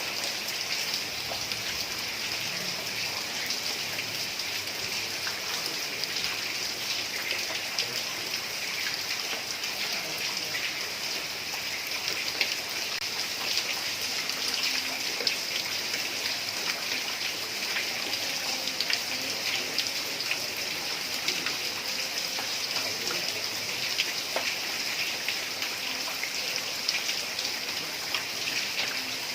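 Heavy rain falling steadily on roof tiles, a dense even hiss with many small drop ticks.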